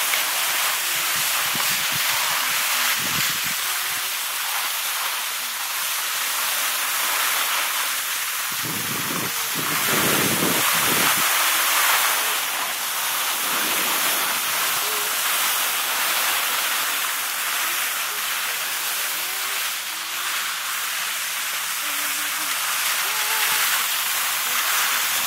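Skis sliding over snow: a steady hiss, with a few brief low rumbles of wind on the microphone, the longest about nine to eleven seconds in.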